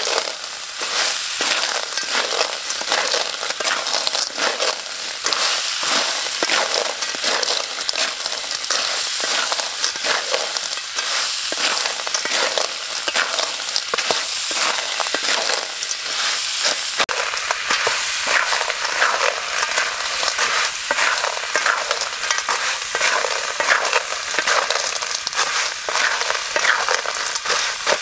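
River clams in their shells stir-frying in a hot pan with ginger and chilies: a steady dense sizzle and crackle, with the shells clicking and scraping against each other and the pan as a wooden spatula turns them.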